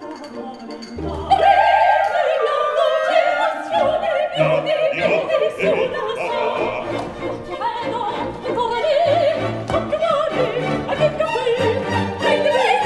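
Live opera: a female voice singing with vibrato over a pit orchestra, the music getting louder about a second in.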